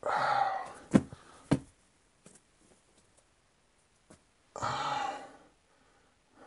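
A man's two heavy breathy exhales while holding a deep hip stretch, the first right at the start and the second about four and a half seconds in, with two sharp dull thumps about a second in.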